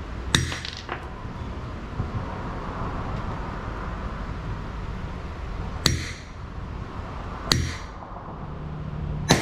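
Hammer blows on steel as a U-joint's bearing caps are driven into a driveshaft yoke: four sharp, ringing metal strikes, the first about half a second in, then a long pause before the other three come a second or two apart.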